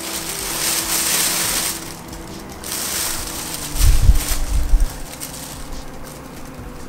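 Thin plastic bag rustling and crinkling as a kitten wrestles with it, the bag caught around its neck, with a burst of dull low thumps about four seconds in.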